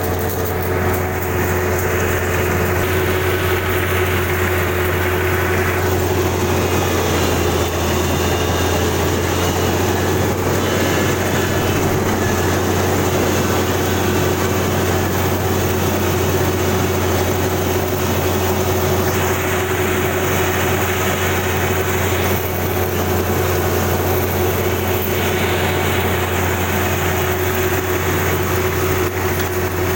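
Kubota DC-35 rice combine harvester running steadily: a constant engine hum and a steady machine tone, with a noisier layer that swells and fades a few times.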